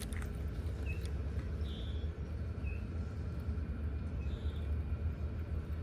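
Outdoor ambience: a steady low rumble, with a small bird giving short high chirps four times, a buzzy note followed by a thinner one.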